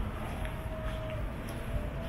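Outdoor city street ambience: a steady low rumble, with a faint thin tone held from about half a second in.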